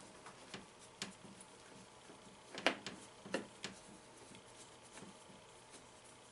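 Faint clicks and taps of a screwdriver working on a 1979 Bally Star Trek pinball's flipper assembly as it is taken apart, with a few louder clicks near the middle.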